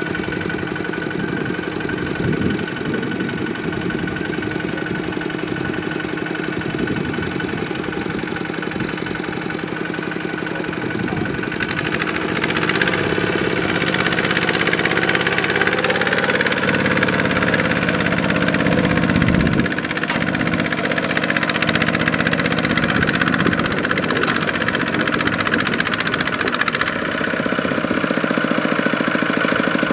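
Kubota single-cylinder diesel tractor engine running steadily, then getting louder about twelve seconds in, with its pitch rising a few seconds later as the engine speeds up.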